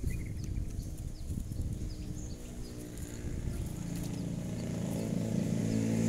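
A small engine comes in about halfway through, running steadily and growing louder, over a low rumble. Faint short high chirps repeat throughout.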